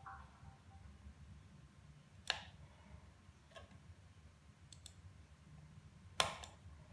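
A handful of sharp, faint clicks at uneven intervals, the two loudest about two seconds in and near the end, over a faint steady low hum.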